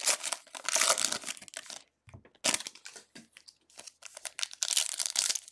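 Foil wrappers of Donruss football card packs crinkling and tearing as they are ripped open by hand, in bursts with short pauses.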